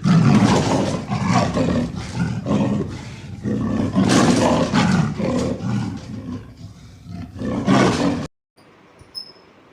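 Leopard calling: a run of loud, repeated roars that rise and fall in strength, cutting off abruptly a little after eight seconds.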